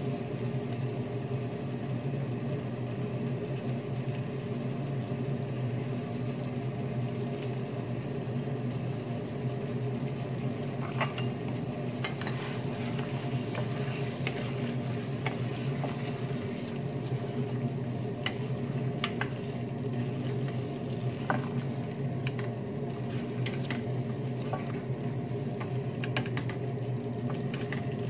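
A wooden spoon stirring chunks of meat in sauce in a stainless steel pot, with scattered light clicks and scrapes against the pot from about a third of the way in, over a steady low hum.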